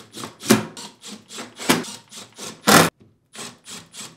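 Cordless drill-driver driving screws into a dishwasher's metal door panel in short rasping bursts, about two a second, the loudest just before a brief stop near three seconds in.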